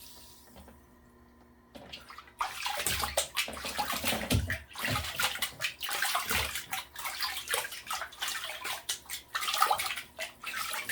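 Water splashing and sloshing irregularly in a small tub where a dog is being bathed, starting about two seconds in.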